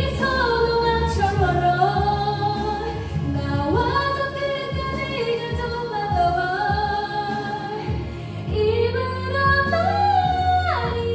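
A woman singing a slow, held melody into a karaoke microphone over a karaoke backing track with a steady bass line.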